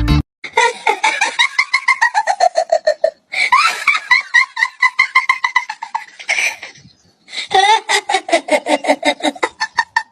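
High-pitched hearty laughter in three long bouts of rapid ha-ha-ha pulses, the pitch sliding down through each bout.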